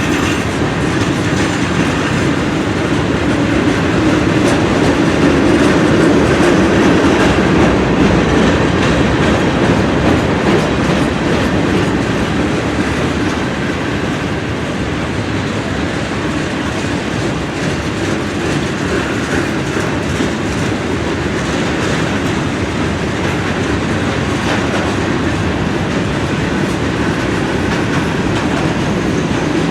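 Freight train cars rolling past, their wheels clattering steadily over the rail joints, a little louder about five seconds in.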